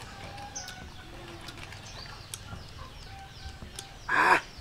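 A wooden pestle knocks a few times in a wooden mortar, with small birds chirping in the background. About four seconds in, a man gives one short, loud shout.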